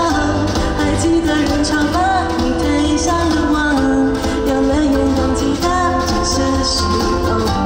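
Live pop song: a singer with a full band, guitar and steady bass underneath.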